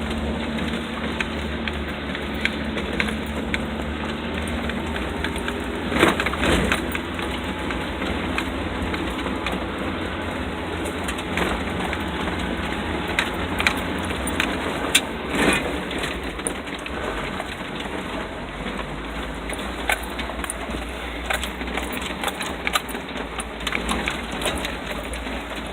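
Vehicle driving slowly over a rough, washed-out dirt road: a steady low engine and road rumble with scattered knocks and rattles, the loudest about six and fifteen seconds in.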